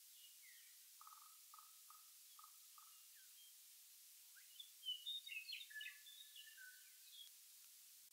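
Faint outdoor birdsong: a row of five short, evenly spaced low notes, then about halfway through a louder run of quick, varied chirps and whistles.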